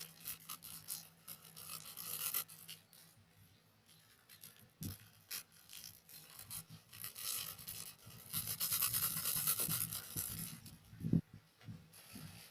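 Scratchy scraping and rasping of kitchen food preparation, with a few sharp knocks; the longest stretch of scraping comes about nine seconds in.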